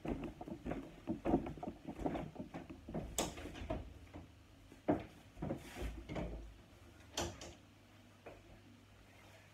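Clothes on hangers rustling and a wooden wardrobe door and hangers knocking and clattering as garments are put away, a string of irregular knocks that dies down near the end.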